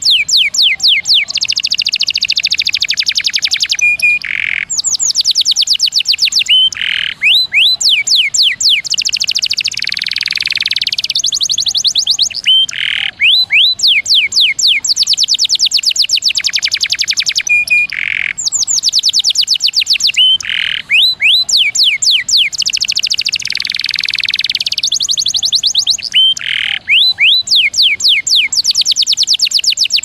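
Domestic canary singing: long rapid trills of quick downward-sweeping notes, broken by short buzzy passages and brief held tones. The same sequence of phrases comes round again about every 14 seconds.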